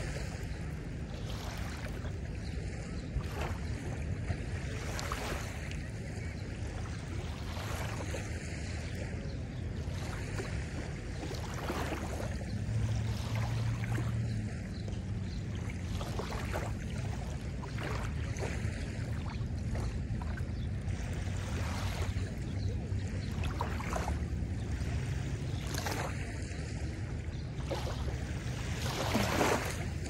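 Small lake waves lapping and washing onto a sandy shore every second or two, over a steady low rumble.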